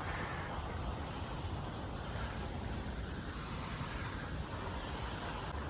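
Steady outdoor background noise, a low rumble with hiss and no distinct events.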